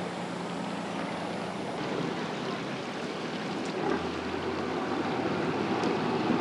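Fishing boat engine running with a steady wash of harbour water and some wind. About four seconds in the sound shifts to a deeper engine hum.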